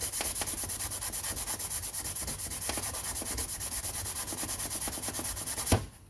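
Cloth rubbing heavy-cut rubbing compound by hand into the oxidized plastic top cover of a Husqvarna 2100 chainsaw, in quick, even back-and-forth strokes. The rubbing ends with a single thump near the end.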